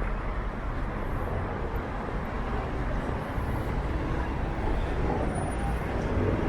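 Steady city street traffic noise, a constant hum of vehicles with no single event standing out.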